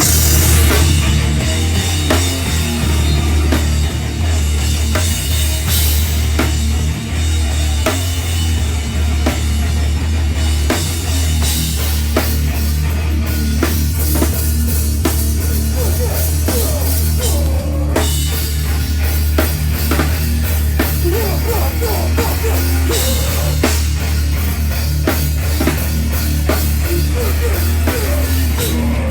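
Live heavy band playing loud and fast: distorted guitars and bass over pounding drums with frequent cymbal and snare hits.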